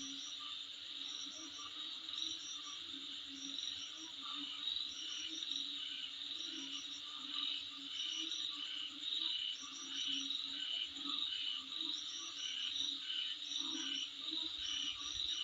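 Chorus of insects, crickets among them: a steady high trill, with short chirps in clusters of three or four repeating every second or so. A lower pulsing call runs underneath.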